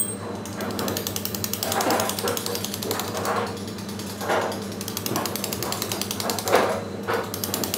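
Carving chisel working stone, with rapid, regular taps of about ten a second and a few louder strikes scattered through.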